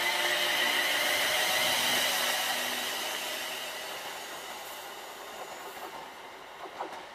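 Class 350 Desiro electric multiple unit departing, its high whine mixed with wheel-on-rail noise, fading steadily as it draws away.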